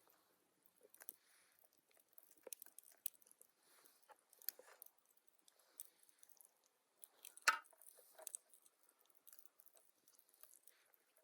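Quiet close-up eating sounds: irregular soft chews, bites and small crunches. One louder crunch comes about two-thirds of the way through.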